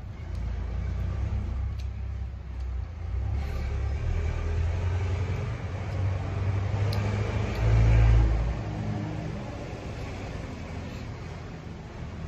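A low rumble that swells to its loudest about eight seconds in and then eases off.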